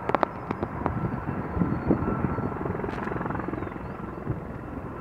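Sikorsky CH-53G heavy transport helicopter flying in on landing approach: a steady rumble of its twin turbines with the even beat of the main rotor.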